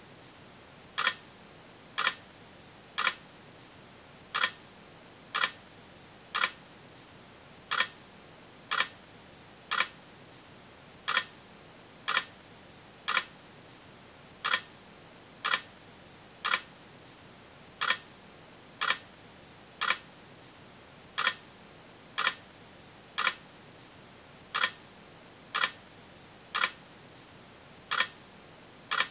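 A sharp click repeating about once a second in a steady pattern: three clicks, then a slightly longer gap, over and over, with a faint hiss between them.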